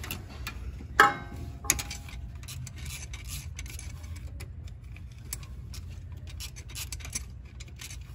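Metal hardware and hand tools clinking and ticking while a bolt or nut on an A/C compressor mount is fastened by hand: one sharp ringing clink about a second in, then a run of small irregular ticks, over a steady low hum.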